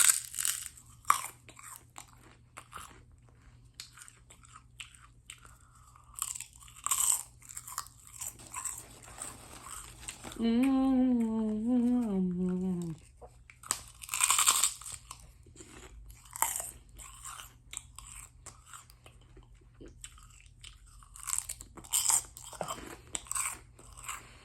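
Close-up crunching and chewing of puffed pork rinds: irregular crisp bites and crunches, a cluster of loud ones about fourteen seconds in. A short held vocal sound with wavering pitch comes about ten seconds in, lasting two to three seconds.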